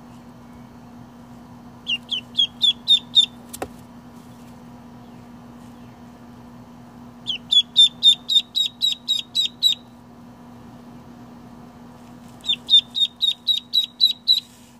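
Baby chicks or ducklings in a brooder peeping in three bouts of rapid, high peeps, about five a second, over a steady low hum. A single sharp click comes about three and a half seconds in.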